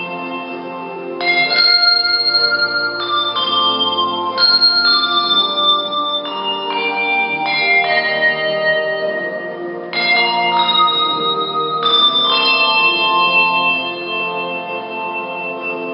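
Solo handbell ringing: brass handbells rung one or two at a time to play a slow melody, each note ringing on and overlapping the next, with new strikes every half second to two seconds.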